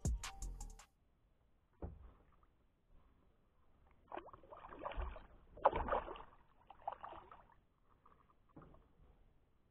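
Irregular splashing and knocking of water and gear against a plastic kayak hull as a hooked bass is brought in beside the kayak, busiest from a few seconds in, with a single knock near the start.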